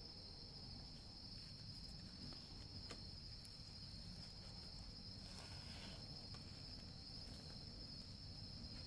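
Steady, high-pitched chorus of insects, one unbroken trill, with a short burst of noise about five seconds in.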